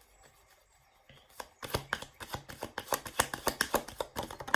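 A deck of cards being shuffled by hand: a quick run of sharp slaps and clicks, starting about a second and a half in.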